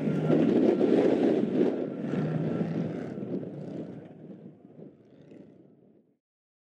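Off-road race vehicle's engine noise, mixed with wind on the microphone, fading away over about three seconds and then cutting off abruptly about six seconds in.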